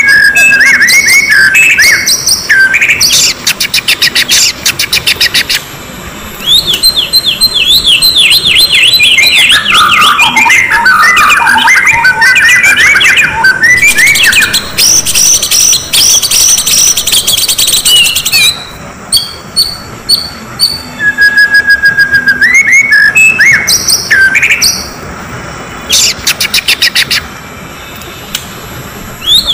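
Oriental magpie-robin (kacer) singing agitatedly. A held whistle breaks into quick rising notes, there are bursts of rapid harsh chattering, and a long run of chirps slides down in pitch, over and over. This is the excited, aggressive song used as a lure to provoke other magpie-robins into singing.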